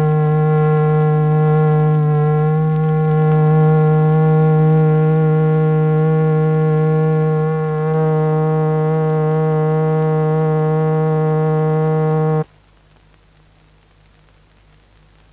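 Steady buzzy tone with many overtones: the exciting tone of a cymatics experiment, driving the vibrating membrane beneath the powder. It cuts off suddenly about twelve seconds in, leaving faint hiss.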